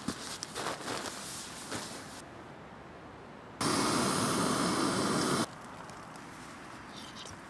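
Canister gas stove burner hissing steadily under a small metal pot for about two seconds, starting and stopping abruptly; it is the loudest sound. Before it, soft rustling and clicks of gear being handled.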